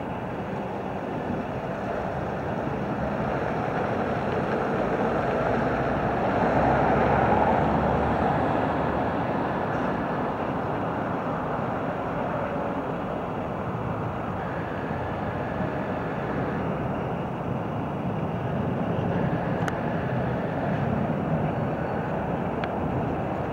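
Heavy truck's diesel engine running at low speed while the truck crawls through a tight turn, a steady vehicle noise that swells about seven seconds in and then settles.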